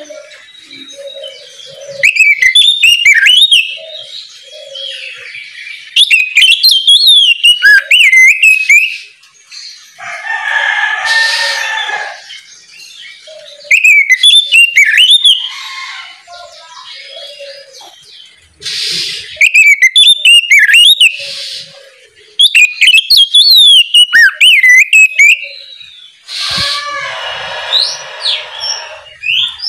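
Oriental magpie-robin (kacer) singing: loud phrases of quick, sliding whistled notes with sudden pitch jumps, repeated every few seconds. The phrases are broken twice by a harsh rasping call.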